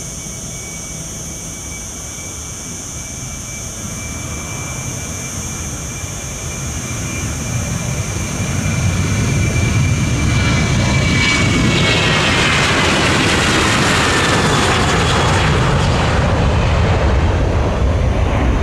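Boeing 737-800's CFM56-7B jet engines at takeoff power as the airliner rolls, lifts off and climbs away. The rush grows louder from about six seconds in and then stays loud, with a high whine that falls in pitch as the aircraft passes.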